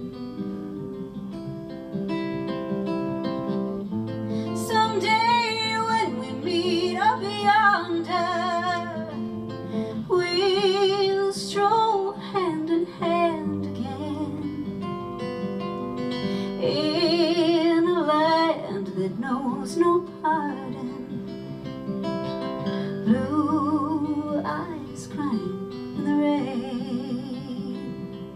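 Acoustic guitar strummed and picked, with a woman's voice joining about four seconds in and singing with a wavering vibrato, then dropping out briefly near the end before coming back.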